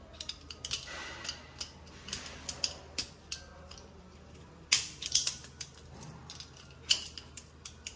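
Light metallic clicks and scrapes of steel gearbox parts being handled by hand, scattered irregularly with a louder cluster about five seconds in.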